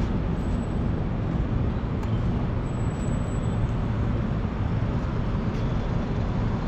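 Steady low rumble of city traffic noise.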